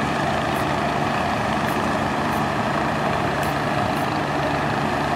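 Large diesel engine, most likely a ship's, running steadily at idle as a continuous low hum.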